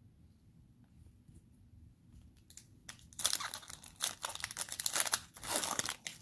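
Cellophane wrapper of a Mosaic football card cello pack crinkling and tearing as it is handled and pulled open, starting about three seconds in with a dense crackle.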